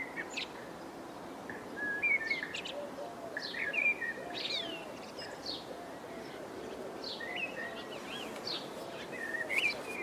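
Blue tit and sparrows chirping, short quick calls that rise and fall in pitch, bunched about two and four seconds in and again near the end, over a steady outdoor hiss.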